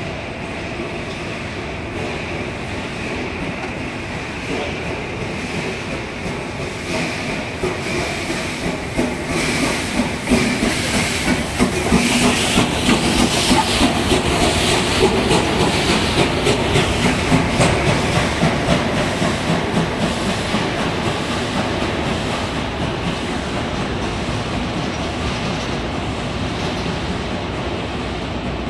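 Train of old passenger coaches rolling slowly along the track, the wheels clacking over rail joints. A steam locomotive passes close with a loud hiss of steam between about 12 and 17 seconds, and then the sound eases into a steady rumble.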